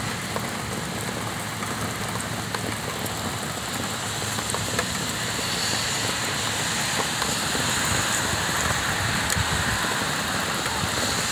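Heavy rain pouring onto wet pavement, a steady even hiss.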